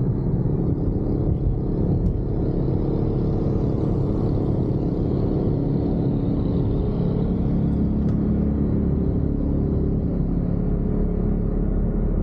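Car driving at speed on an open road: a steady low rumble of engine and tyre noise.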